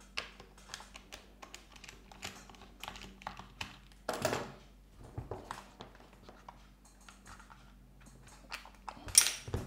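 Scattered small clicks and taps of a tool and parts being handled against the plastic housing of an oscillating multi-tool as its carbon brush holder is pried open. Two louder knocks come about four seconds in and near the end.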